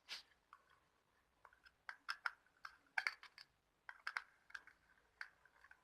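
Light, irregular clicks and ticks of small plastic and metal parts being handled as a wire is fitted to a terminal of a modular bell switch.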